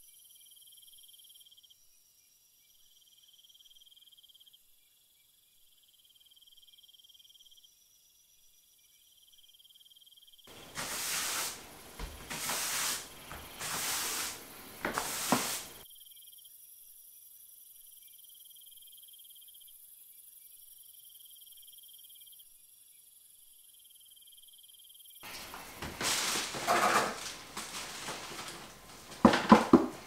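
Cricket chirping in pulsed trills, broken twice by a few seconds of loud rustling and knocking handling noise.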